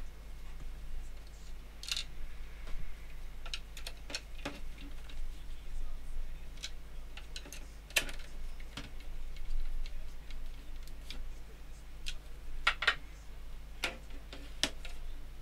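Scattered small clicks and ticks of a femtocell's white plastic casing being handled and fitted back together, with a small screwdriver working in the case, over a low steady hum.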